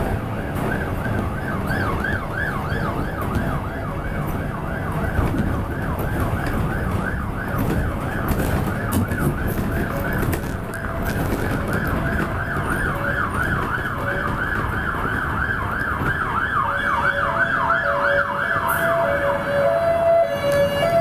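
Emergency vehicle siren on the yelp setting, sweeping rapidly up and down about three times a second, over the steady rumble of bus and traffic. Near the end a second, lower siren alternating between two notes joins in.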